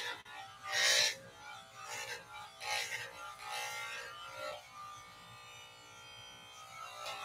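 Electric hair clippers buzzing steadily, with rasping bursts as the blades pass through short hair on the scalp, several times in the first four seconds; near the end the clippers run on alone.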